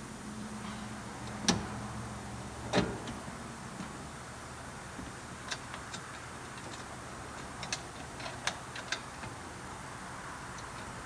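Hands-on work with taillight parts and tools: two sharp knocks in the first few seconds, then a scatter of small light clicks a few seconds later, over a low hum that fades out after about three seconds.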